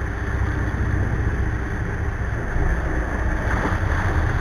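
The Cabo 40 sportfishing boat's engines running, with water churning and rushing along the hull: a steady low rumble under a wash of water noise.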